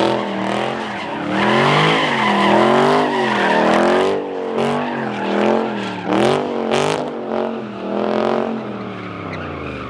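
Dodge Charger engine revving up and down over and over while the rear tires spin and squeal through donuts on the asphalt. It grows a little quieter near the end as the car pulls away.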